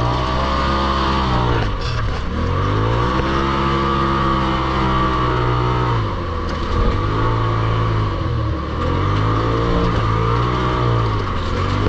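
Polaris RZR Turbo side-by-side engine running hard. The revs drop and climb again about four times as the throttle is let off and reapplied.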